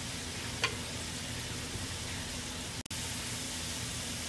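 Potato cubes deep-frying in a pan of hot oil: a steady bubbling sizzle, with one light tap under a second in and a brief dropout near the three-second mark.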